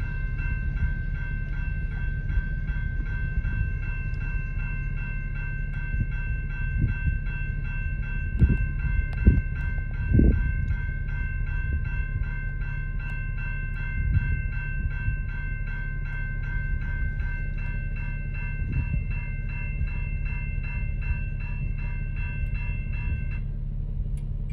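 Electronic grade-crossing warning bell ringing in a rapid steady pulse over the low rumble of a freight train's cars rolling through the crossing, with a few louder clanks near the middle. The bell cuts off about a second before the end as the crossing gates rise. Heard from inside a car.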